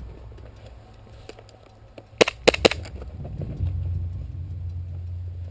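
Airsoft pistol (Tokyo Marui Glock 17) fired three times in quick succession: three sharp cracks about a quarter second apart, about two seconds in. A steady low rumble follows.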